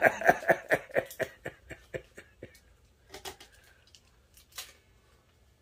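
Fast-forwarded audio of hands working packing pieces out from around a solid-body electric guitar's pickups and bridge: a quick, even run of chattering, rustling clicks that fades over the first couple of seconds, then a few scattered clicks.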